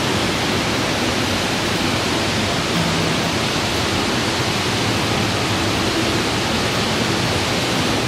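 Waterfall and stream water rushing over rocks, a steady loud rush of water.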